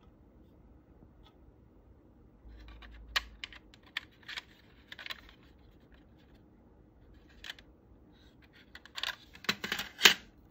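Plastic model-kit parts clicking and scraping against each other as they are handled and test-fitted: a scatter of light clicks a few seconds in, then a louder quick cluster near the end.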